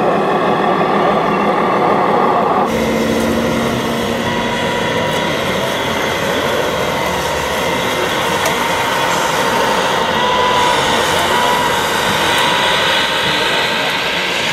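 Radio-controlled model dump truck running. From about three seconds in, this gives way to the steady whine and brushing hiss of a model wheel loader's rotating sweeper broom on gravel.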